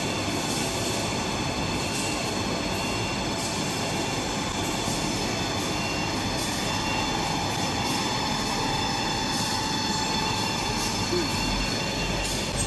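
Tissue paper converting line running: a steady mechanical rumble from the conveyors and the log accumulator feeding long paper logs toward the cutting machine, with faint irregular clicks and a few steady whining tones.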